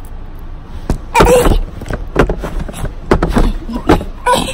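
A toddler's short, high-pitched babbling vocalizations, one about a second in and another near the end, among scattered knocks and bumps.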